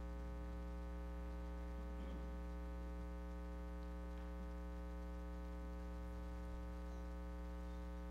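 Steady electrical mains hum from the amplified sound system, a low buzz with a long stack of overtones that holds unchanged throughout.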